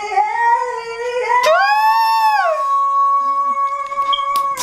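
A voice holding long, high sung notes at a steady pitch, with a second, louder note swelling up about a second and a half in and falling away a second later.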